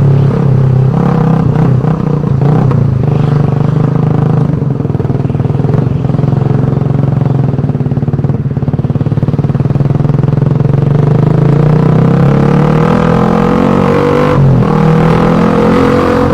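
Suzuki Satria FU 150's single-cylinder four-stroke engine running loudly through its exhaust, its pitch climbing over the last few seconds with a brief break near the end.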